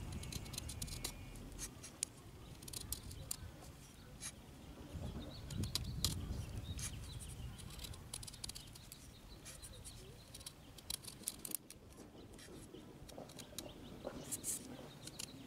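Small hardwood fire crackling, with irregular sharp snaps and pops over a low rumble.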